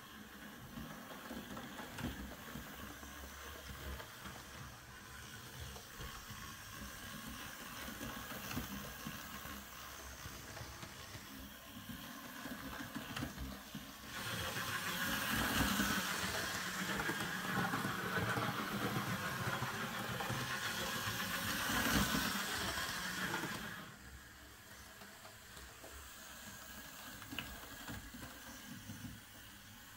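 Hornby R2359 Black 5 OO gauge model steam locomotive running round a layout loop on DC: a steady whirr of its small electric motor and the rattle of its wheels on the track. It gets clearly louder for about ten seconds midway through, then drops back. The model is running again after its pickups were sorted and a rear axle spring fitted.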